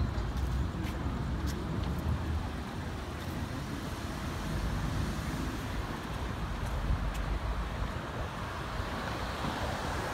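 City street traffic: cars passing on the road, a steady noise with a low rumble. It swells near the end as a car passes close by.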